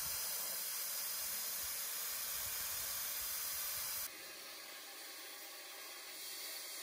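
Air hissing steadily out of a pickup truck tire's valve stem as the tire is aired down for a steep, rough track. About four seconds in it drops to a quieter hiss.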